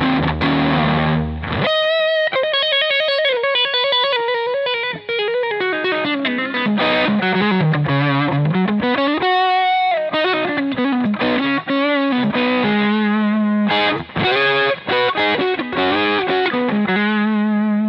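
Godin A6 hybrid guitar played through its neck humbucker with overdrive from an EarthQuaker Devices Palisades pedal, the bass turned down and the treble up. A ringing chord opens, then about a second and a half in come single-note lead lines with bends and vibrato, ending on a held note.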